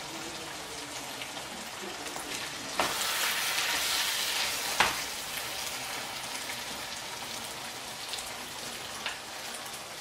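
Meat-pie filling of minced meat, potato and carrot sizzling steadily in a frying pan as it is stirred with a spoon, while flour is added to thicken it. The hiss grows louder for about two seconds from about three seconds in and ends with a sharp knock.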